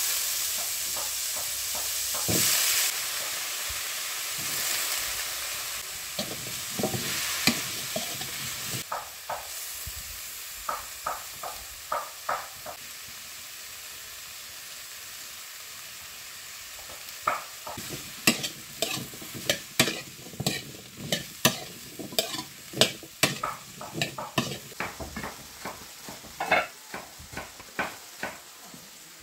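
Raw taro chunks dropped into a hot metal wok, sizzling loudly at first and dying down over about nine seconds, with a metal ladle clinking against the wok and bowl. Later comes a long run of sharp clinks and knocks of the metal ladle stirring the taro in the wok.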